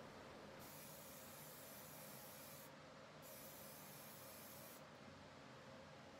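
Faint hiss of a Montana aerosol spray-paint can laying down a red base coat: two bursts of about two seconds and a second and a half with a short pause between, the spraying stopping about five seconds in.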